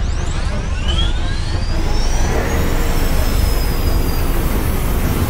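Layered action-scene sound effects: a heavy continuous rumble with whistling tones that sweep up and down in pitch, like machines passing by.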